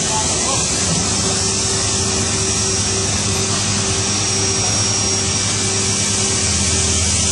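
Mazak 515/50 vertical machining center running: a steady mechanical hum under a strong, even hiss, with a faint tone that comes and goes.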